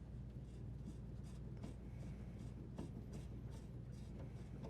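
Faint scraping and a few light clicks of channel lock pliers turning the water supply line elbow fitting off the dishwasher's inlet valve, over a low steady hum.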